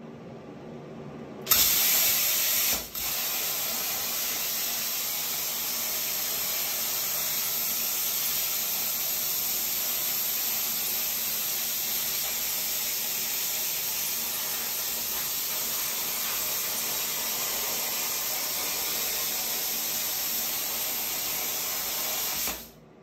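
Everlast 50 A plasma cutter running at 38 A and 70 psi, cutting 1.6 mm hot-rolled steel: the arc starts suddenly with a loud hiss about a second and a half in, louder for its first second, drops out for an instant, then hisses steadily while the torch cuts, and cuts off abruptly near the end.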